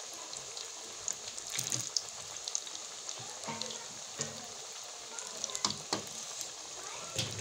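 Egg pakoras deep-frying in hot oil: a steady sizzle with scattered sharp pops and crackles.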